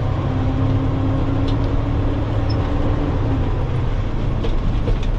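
Dump truck's diesel engine running steadily as the truck drives off, a continuous low hum with a faint steady tone above it that fades about three and a half seconds in.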